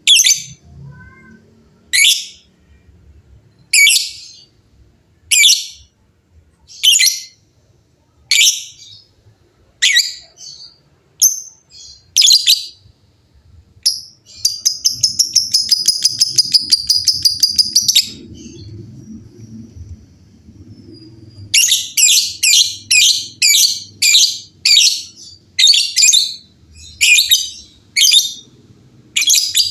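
Lovebirds calling: shrill chirps about every second and a half, then a long rapid chattering trill, the 'ngekek', lasting about three and a half seconds midway. A quick run of calls follows in the last third, the birds answering one another.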